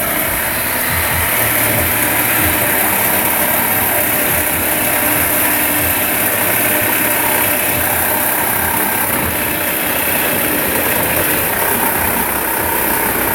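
Reciprocating saw (Sawzall) cutting steadily through a steel exhaust pipe to remove a catalytic converter.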